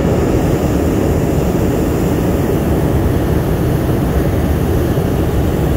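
Hot air balloon's propane burner firing in one long, steady, loud blast.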